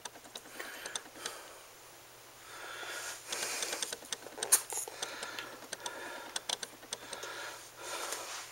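Small handling sounds of a fiber-optic jumper connector: light clicks and soft rubbing as it is pulled from a video inspection scope's port, its end face wiped dry, and plugged back in near the end.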